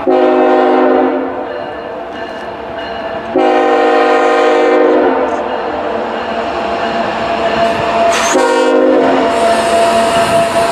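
Locomotive air horn sounding three blasts, about a second, a second and a half, then a shorter one near the end, over the steady rumble of a passing train.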